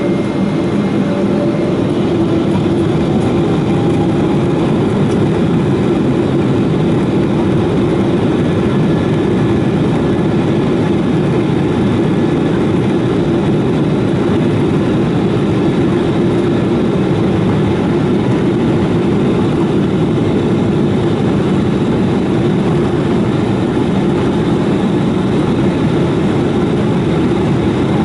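Boeing 777-200ER's Pratt & Whitney PW4074D turbofans running at a steady low thrust, heard from inside the cabin over the wing as the jet rolls on the ground: an even, heavy hum and rush.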